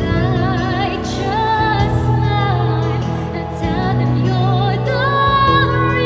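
Two women singing a sacred song with vibrato over a steady, sustained accompaniment.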